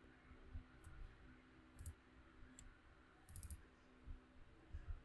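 Faint computer mouse clicks, a few single clicks spread out and a quick cluster a little past the middle, over quiet room tone.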